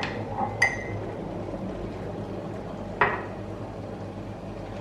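Two light clinks of a ceramic mug near the start, then water poured from a stainless-steel electric kettle into the mug.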